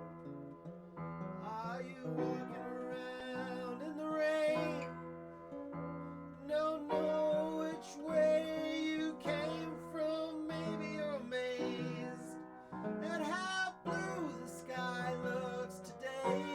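Music: a song played on keyboard, with a singing voice over sustained chords.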